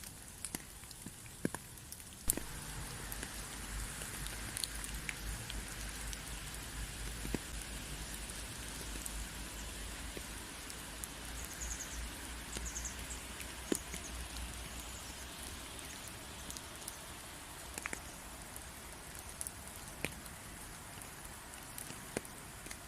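Steady rain falling, with individual drops striking close by as sharp ticks. About two seconds in the rain grows heavier and a low rumble joins it, easing off again in the second half.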